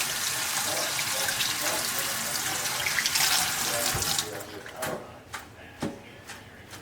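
Kitchen faucet running water into the sink, shut off about four seconds in, followed by a few light knocks and clatters.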